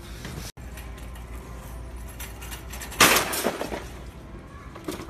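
A sudden loud crash about three seconds in that dies away over about half a second, over a steady low background hum.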